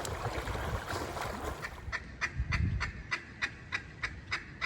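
Rushing wind or water noise, then about two seconds in a steady, rapid run of duck quacks, about five a second.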